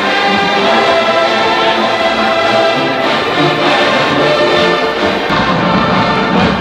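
Brass band music, horns holding sustained notes and chords; the sound changes abruptly about five seconds in to a fuller, lower passage.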